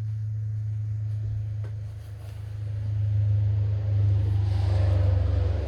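A steady low mechanical hum, like an engine running, that grows louder about three seconds in.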